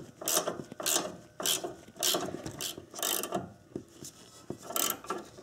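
Ratcheting wrench clicking in quick runs as the nut on a new front stabilizer link is tightened down. The clicks thin out after about three and a half seconds.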